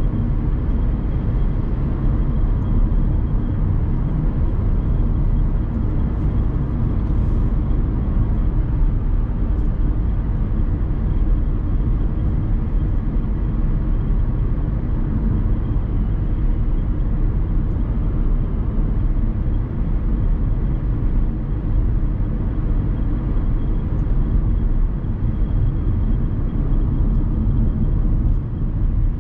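In-cabin sound of a Dacia Sandero Stepway with the 1.5 dCi four-cylinder turbodiesel, driving at a steady speed: an even engine drone mixed with road and tyre noise.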